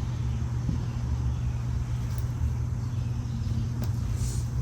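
A low steady rumble with a couple of faint clicks.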